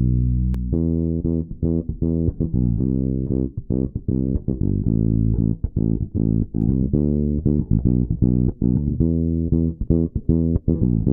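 Electric bass playing a busy line of short plucked notes, processed through a Thermionic Culture Phoenix SB valve compressor.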